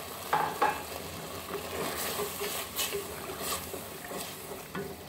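Wooden spatula stirring and scraping thick, bubbling curry in a pan, with half a dozen short knocks and scrapes against the pan over a steady sizzle.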